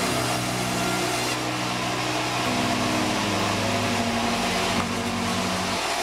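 Sawmill band saw running steadily: a continuous machine whir over a motor hum.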